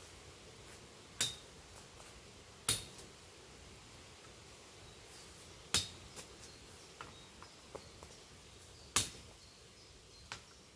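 Machete blade striking brush and branches in four sharp chops spaced irregularly a few seconds apart, each with a short metallic ring, with lighter clicks and snaps of twigs between them.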